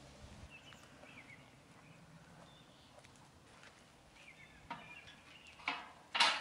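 Faint birds chirping, then near the end two loud metallic clatters as a steel grill grate is set down onto a fire pit made from car-wheel rims, the second the louder.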